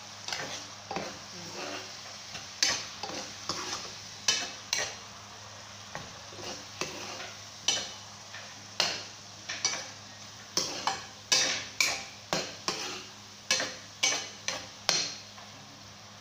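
A metal spatula stirring and scraping against a frying pan in irregular strokes, coming faster in the second half, while canned tuna with onion and garlic sizzles softly in oil.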